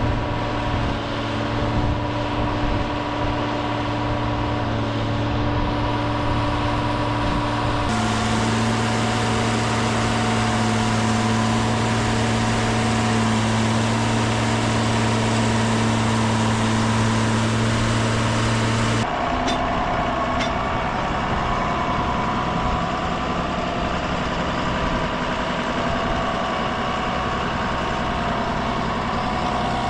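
Farm tractor diesel engines running steadily, in three separate stretches with a sudden change in engine tone about eight and nineteen seconds in.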